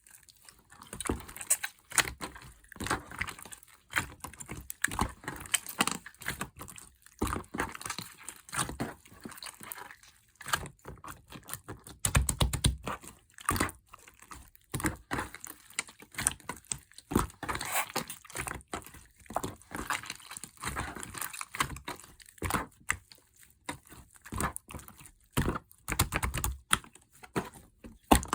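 Hands pressing, poking and squishing slime: a dense, irregular run of small sticky clicks, pops and crackles.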